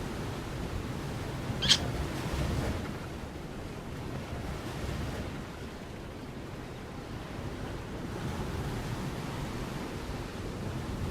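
Steady rushing noise of wind buffeting the microphone, with one short high-pitched chirp just under two seconds in.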